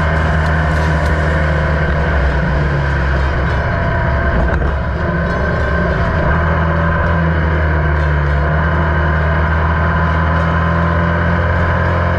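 Formula Vee race car's air-cooled Volkswagen flat-four engine running hard at racing speed, heard from the car itself. The engine note breaks briefly about five seconds in, then holds steady again.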